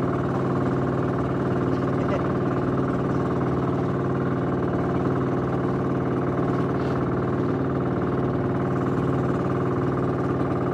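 Outrigger bangka's engine running steadily under way, a constant even drone.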